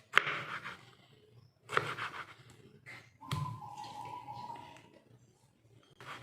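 Kitchen knife cutting a tomato on a cutting board: a few sharp knocks, with a ringing tone held for about a second and a half after the knock about three seconds in.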